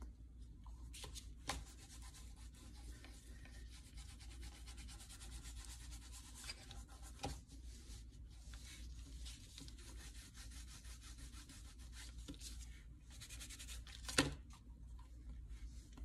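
Cotton rag rubbing and dabbing a finish into a tooled leather sheath: a faint, steady scrubbing, with a few sharp clicks, the loudest about two seconds before the end.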